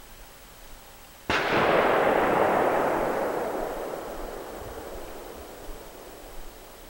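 A sudden loud bang about a second in, followed by a long, noisy rumble that fades away over several seconds.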